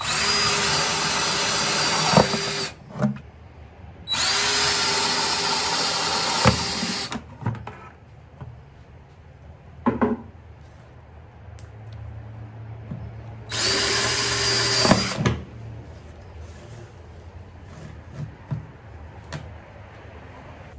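Cordless drill with a 3/4-inch bit boring holes through a plastic 5-gallon bucket: three runs of the motor at a steady speed, about two, three and one and a half seconds long, with a few sharp knocks in between.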